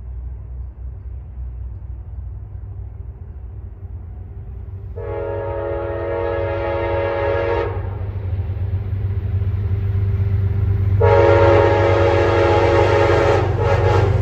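Approaching Amtrak Genesis diesel locomotive sounding its multi-tone horn in two long blasts, the first about two and a half seconds long and the second starting about six seconds after the first. Under the horn the train's rumble grows steadily louder as it nears.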